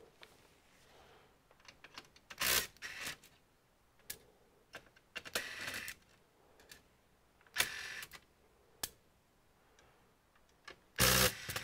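Scattered clicks, taps and short scraping rattles of small plastic and metal parts being handled while an all-in-one PC is taken apart. A louder knock comes about two and a half seconds in, and another near the end.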